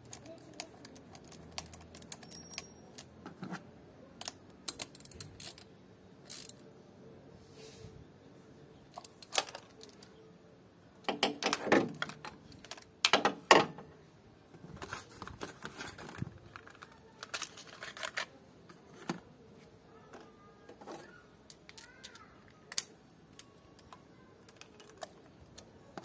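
Irregular metallic clicks and clinks of hand tools on the engine: a spark plug socket, extension bar and ratchet being handled while spark plugs are changed, with a couple of busier bursts of clicking about halfway through.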